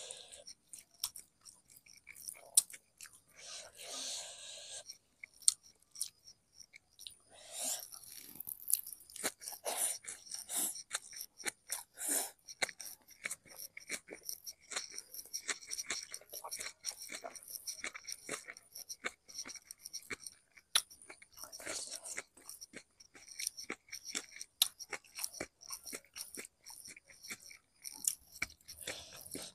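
A person chewing and crunching food while eating by hand, with many small irregular mouth clicks and crunches.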